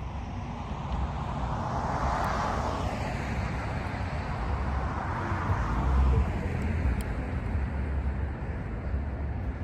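A vehicle passing, its noise swelling to a peak about two seconds in and again around five seconds before fading, over a steady low rumble.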